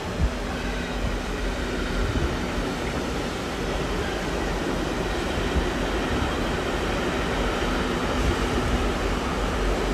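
A train moving through a railway station: a steady rumble with a faint steady hum running through it.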